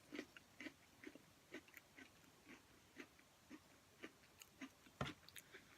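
Faint crunching of thin, crispy pretzel crackers being chewed: short crisp crunches about twice a second, with a sharper one near the end.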